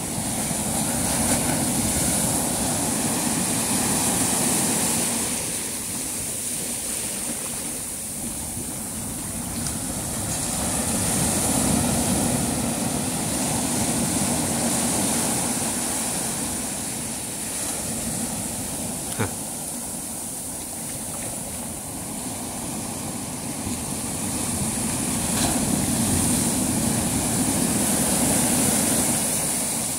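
Sea waves washing on the shore, a rushing noise that swells and fades every several seconds. A single sharp click about two-thirds of the way through.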